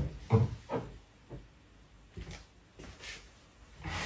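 A sharp knock, then two short voiced sounds, a few faint handling noises and a breathy burst near the end.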